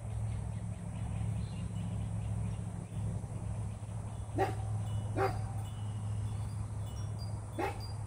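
A dog barking three times: two barks about a second apart near the middle, then one more near the end, over a steady low hum.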